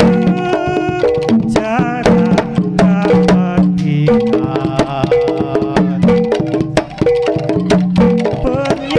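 Live jaranan accompaniment: the ensemble's kendang hand drums beat a busy rhythm over held metallic gong-chime notes, with a wavering melody line above.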